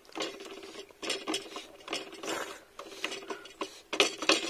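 Metal forks clinking and scraping against a steel plate of noodles as they are twirled and scooped, with a few sharp clinks about four seconds in. The noodles are slurped and chewed between the clinks.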